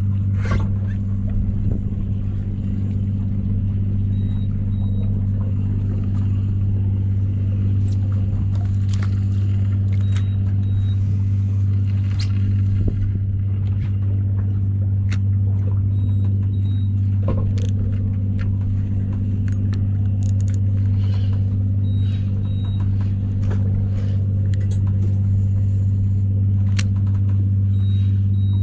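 A fishing boat's engine idling with a steady low hum, with a scattering of light clicks and knocks from tackle on board.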